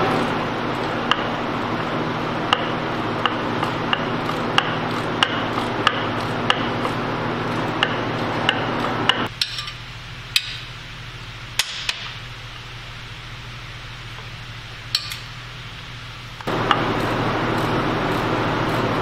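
Ratchet wrench clicking at a steady pace, about one click every two-thirds of a second, while undoing the oil filter cover bolts under a motorcycle engine. A few sharper metal clinks follow in the second half. A steady shop hum drops out about nine seconds in and returns near the end.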